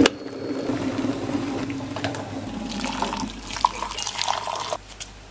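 Water poured from a kettle into a ceramic mug: a steady splashing pour that grows brighter partway through and stops abruptly just before the end. A sharp click comes at the very start.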